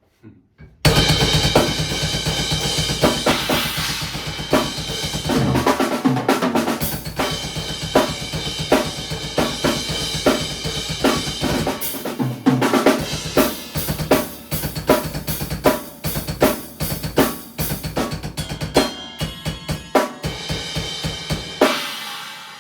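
Drum kit being played: a steady groove of bass drum, snare and cymbals. It starts about a second in and stops near the end, with the cymbals ringing out.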